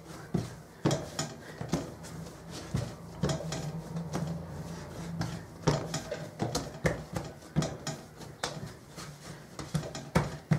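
Hands kneading and rounding a ball of polvorón dough on a floured wooden table: irregular soft pats and knocks, over a steady low hum.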